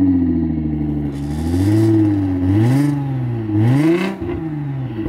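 Nissan GT-R R35's twin-turbo V6 breathing through an Armytrix aftermarket exhaust, revved at standstill. It starts at high revs and sinks back, then is blipped three times, each rev climbing and dropping away.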